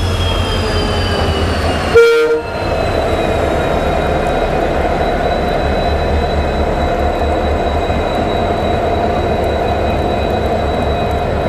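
WDP4D diesel locomotive's EMD 16-cylinder two-stroke engine running with a steady low hum, its high whine sliding down in pitch over the first two seconds. About two seconds in, a short loud blast of the locomotive's horn, then the steady hum carries on.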